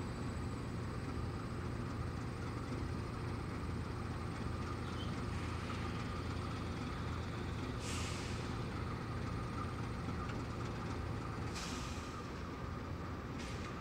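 Diesel freight locomotive idling with a steady low rumble, with three short hisses of released air from its air system: the first about eight seconds in, the other two near the end.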